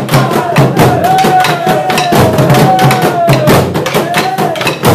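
Burundian ingoma drums beaten with wooden sticks in a fast, steady rhythm, with a voice chanting long arching calls over the beat.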